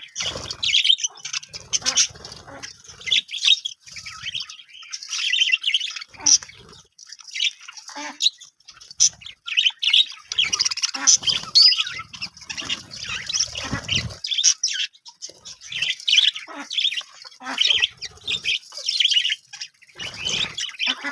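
A flock of budgerigars chirping and chattering continuously, with rapid warbling calls and occasional harsh squawks.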